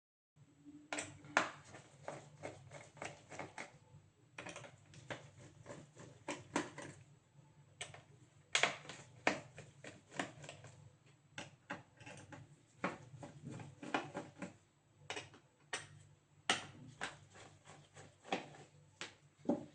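Irregular small clicks and taps of hands and tools working on a laptop's casing, coming in clusters, over a faint steady low hum.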